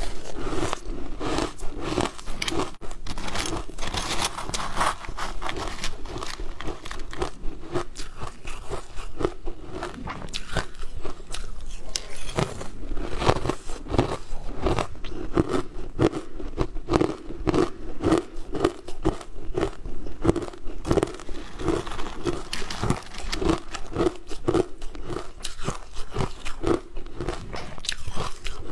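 Close-miked crunching and chewing of coloured frozen ice chunks, one crisp crunch after another, with no pauses.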